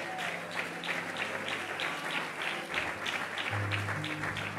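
Congregation clapping in a steady rhythm, about four claps a second, over low held musical notes; a deeper, stronger note comes in about three and a half seconds in.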